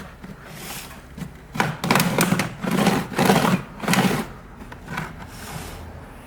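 A pry tool working along the seam of a laptop's bottom case, prying it apart with scraping, rattling clicks. The clicks come in four short bursts, from about a second and a half to four seconds in.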